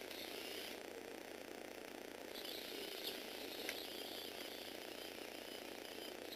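Small electric motor and plastic gear train of a motorized Lego Technic car running with a steady gear whir. A higher whine comes and goes, with a couple of sharp clicks about three seconds in.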